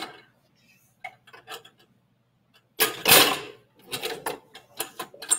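Irregular knocks and clatter of things being handled and moved, the loudest and longest about three seconds in.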